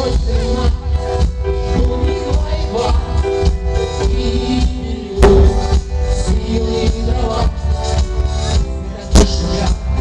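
Live rock band playing through stage speakers: electric guitar, bass guitar, drum kit and keyboard, with two loud accents about five and nine seconds in.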